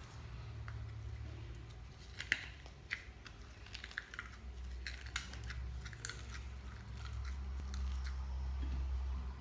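Spiced ground beef being pushed by thumb through a funnel into fresh intestine casing: wet squelching and small sticky clicks, scattered through the middle, over a low steady hum.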